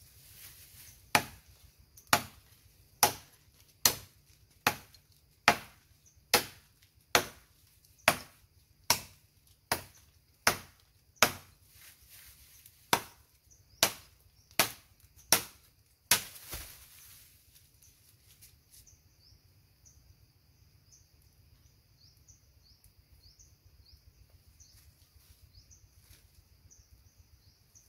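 Steady chopping with a blade: about eighteen sharp strikes, a little more than one a second, that stop about two-thirds of the way through. After that, a faint, high, repeating chirping.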